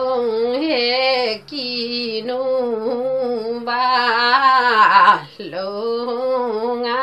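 A woman singing a Limbu palam unaccompanied, holding long wavering notes in phrases broken by short pauses for breath.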